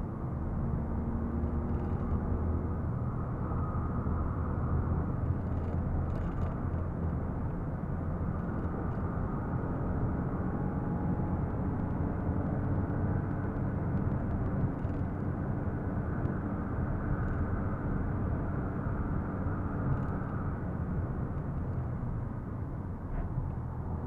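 Ford Fiesta heard from inside the cabin while driving at speed: a steady engine drone mixed with road and tyre noise.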